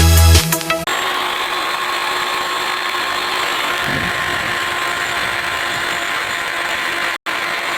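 A handheld power tool running steadily at a constant speed, taking over as electronic music cuts off about a second in, with a brief break near the end.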